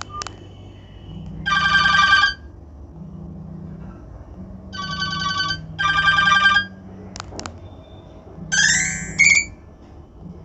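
Nokia basic phone's ringtone playing through its small loudspeaker at full ringtone volume: short bursts of bright electronic tones, the last one with quickly rising sweeping notes, over a softer low tone pattern. A couple of sharp clicks come between the bursts.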